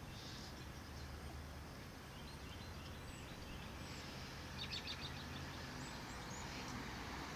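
Low steady rumble of a slowly moving car, with a bird's quick run of high chirps about four and a half seconds in.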